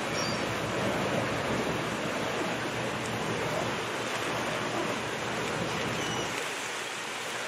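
Choppy sea churning with the splashing of a large raft of sea lions swimming and feeding at the surface: a steady wash of water noise.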